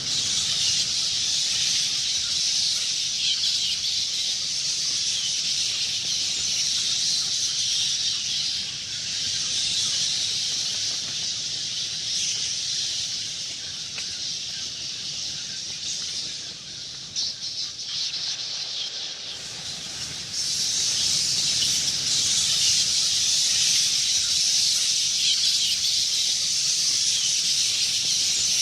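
A swarm of bats chittering: a dense, unbroken mass of high-pitched squeaks. It softens for a few seconds past the middle and comes back louder about twenty seconds in.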